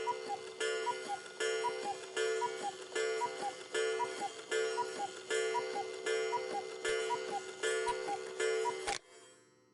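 Cuckoo clock calling the hour: its falling two-note cuckoo call repeats about a dozen times, a little under a second apart, then stops abruptly about nine seconds in.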